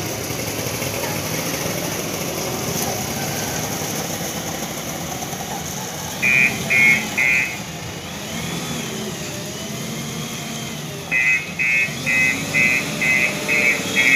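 JCB backhoe loader's diesel engine running steadily while its reversing alarm beeps: three beeps about six seconds in, then an even run of beeps, between two and three a second, from about eleven seconds in.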